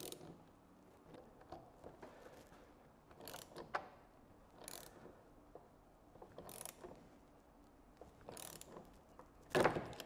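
Socket ratchet clicking in a few short strokes, a second or more apart, as it torques the shear bolt of an Ensto SLIW50 insulation piercing connector. Near the end comes a loud sharp crack as the shear head of the bolt snaps off, the sign that full torque has been reached.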